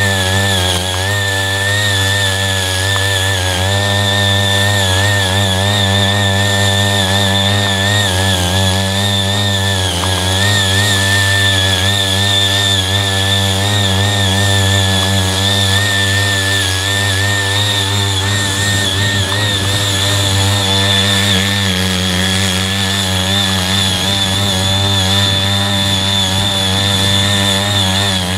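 CY80 walk-behind power tiller's small engine running steadily under load as its rotary tines churn through cloddy soil, its pitch wavering slightly as the load changes.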